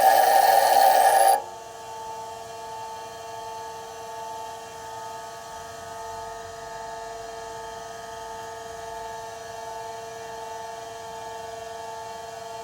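Steel drill bit being ground on a bench grinder wheel, a loud hissing grind that stops abruptly about a second and a half in as the bit is lifted off. The grinder then keeps running free with a steady hum.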